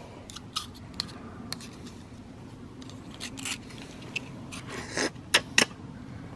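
Knife blade scraping and clicking against a raw wild oyster's shell as it is shucked: a scatter of sharp clicks and short scrapes, the loudest few about five seconds in.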